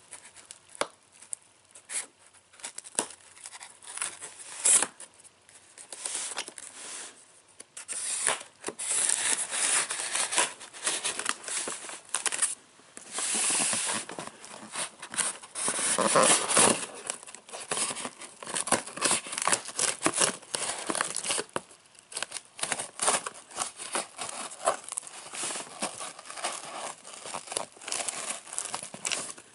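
Scissors cutting through packing tape on a cardboard box: a long run of irregular snips and scrapes, denser and louder in stretches, with short pauses between.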